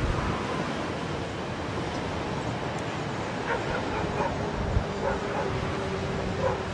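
A dog barking and yipping in a quick run of short calls from about halfway in, over the steady rumble of a freight train of tank wagons moving away.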